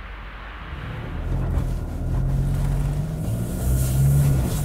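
Toyota Hilux's 2.4-litre four-cylinder diesel engine pulling away, getting louder from about a second in as it accelerates, its pitch shifting up and down with engine speed.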